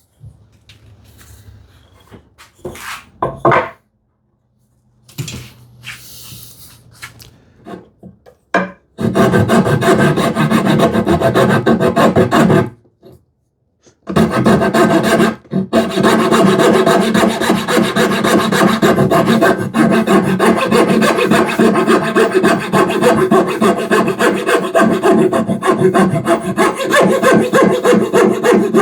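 A few light knocks and handling sounds on wood, then a hand saw cutting wood with steady, rapid back-and-forth strokes, stopping briefly near the middle before going on.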